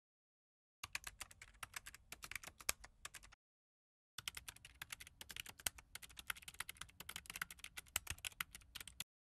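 Rapid keyboard-typing clicks, a typing sound effect keyed to on-screen text appearing letter by letter: a run of about two and a half seconds, a short pause, then a longer run of about five seconds that stops abruptly.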